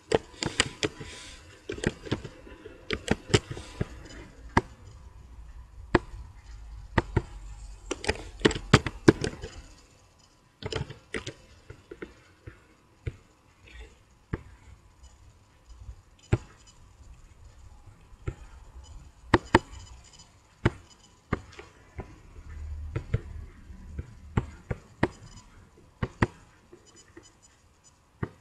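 Irregular sharp clicks and taps of a computer mouse and keyboard, coming thickly in the first ten seconds and more sparsely after.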